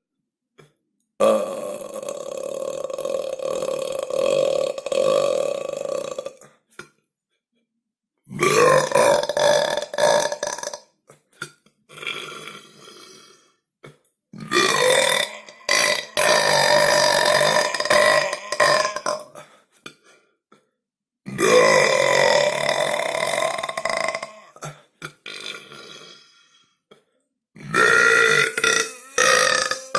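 Five long, drawn-out belches one after another, each two to five seconds long, with a couple of shorter, fainter burps between them and brief silences in the gaps.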